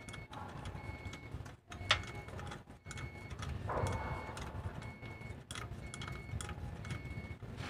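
Metal clicks and taps of a combination wrench on the hydraulic line fitting of a truck's clutch cylinder as the fitting is worked by hand, with one sharp click about two seconds in and a brief scrape near the middle. A faint short beep repeats about once a second in the background.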